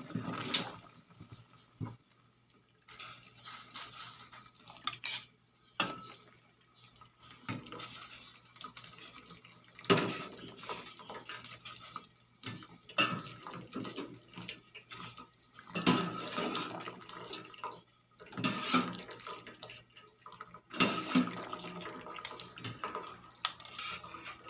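Kitchen utensils clattering and scraping against a metal cooking pot as boiled lamtoro is lifted out of it: irregular knocks and clinks with short pauses, the sharpest clacks about ten, sixteen and twenty-one seconds in.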